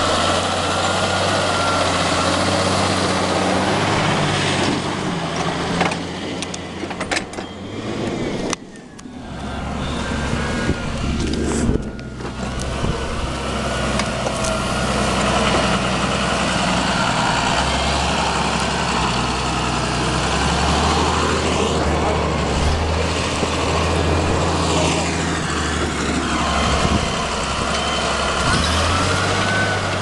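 Claas Arion tractor's diesel engine running steadily under load as it pulls a plough through the soil, with a brief dip in level about nine seconds in.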